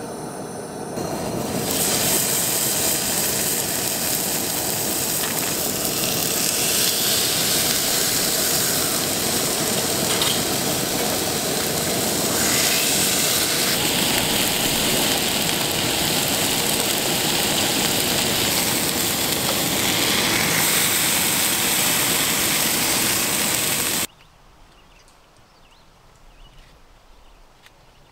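Steaks frying in a pan on a two-burner camp stove: a loud, steady sizzle that stops abruptly near the end.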